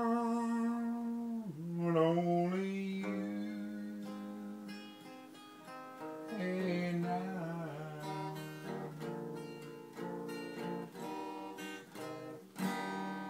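A man singing a slow love song to his own acoustic guitar, with long held sung notes over picked and strummed chords, and a fresh strum near the end.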